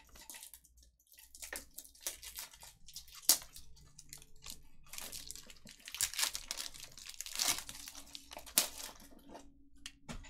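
Foil wrapper of a 2020 Topps Chrome Formula 1 trading-card pack being torn open and crinkled by hand: irregular crackling with a couple of sharp snaps.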